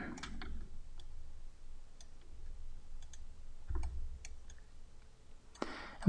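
Scattered light clicks from a computer mouse and keyboard, over a faint low hum.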